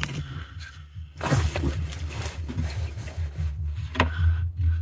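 Handling noise from a gloved hand and a fog light bulb being held and moved under the car: a few brief rustles and light scrapes about a second in, near two seconds and near four seconds, over a low steady hum.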